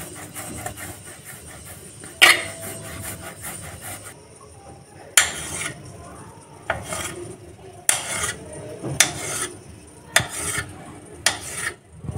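Hands rubbing and rolling a log of dough on a steel plate, with a sharp knock about two seconds in. From about five seconds in, a knife slices the log into pieces, each cut ending in a short sharp click of the blade on the steel plate, roughly a second apart.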